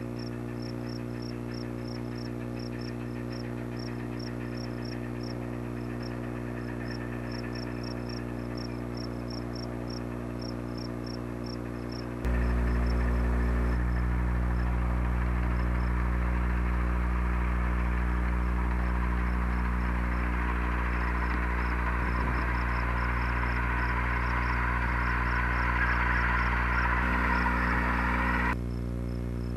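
Crickets chirping in fast, even pulses over a steady low hum from worn VHS tape. After a cut about 12 seconds in, a louder steady noise takes over, and the chirping carries on faintly.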